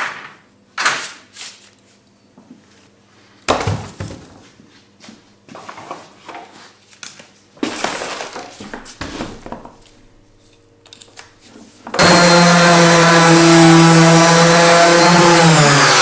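Knocks and clatter of an electric random orbit sander being taken down and handled, then about twelve seconds in the sander's motor starts suddenly and runs loud and steady, its pitch beginning to fall near the end as it winds down.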